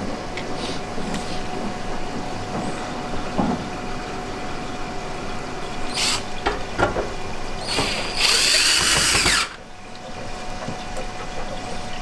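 Cordless drill-driver running for about a second and a half, driving a screw to fasten a plastic cover back on, then cutting off suddenly. A few clicks and knocks of handling the tool and parts come before it.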